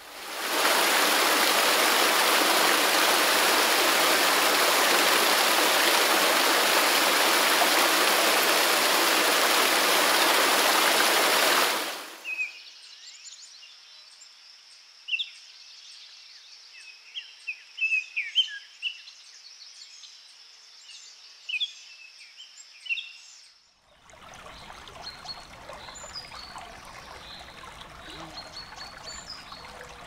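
A loud, steady rush of water for about the first twelve seconds, cutting off suddenly. Then birds chirp over a thin steady high tone. From about two-thirds of the way in, a small stream trickles and ripples, with birds chirping.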